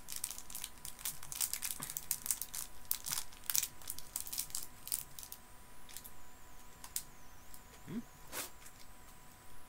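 A crinkly plastic sweet bag being torn open and rustled: a dense run of sharp crackles for the first five seconds or so, then a few scattered rustles.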